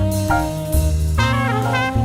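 Background music: an upbeat jazz-style tune with brass or saxophone lead over bass and drums.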